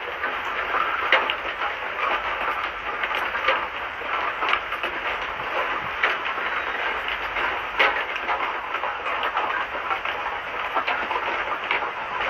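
Blacksmith's forge fire running with its air blast, a steady rushing hiss with irregular crackles and pops, as a steel blade is reheated.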